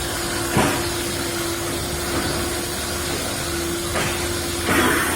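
Steady machine noise: a hiss with a constant hum, and a few light knocks, about a second in and twice near the end.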